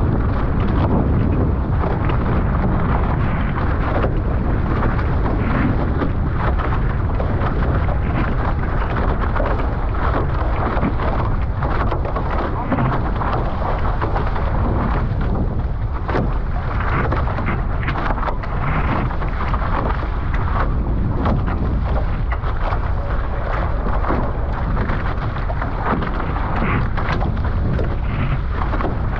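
Steady wind buffeting the microphone, with water rushing and splashing past the hulls of a Nacra 15 sailing catamaran under way.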